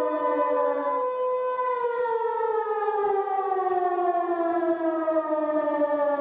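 Siren-like sound effect from a video intro: several layered wailing tones held loud and steady, which begin a slow downward slide in pitch about two seconds in, like a siren winding down.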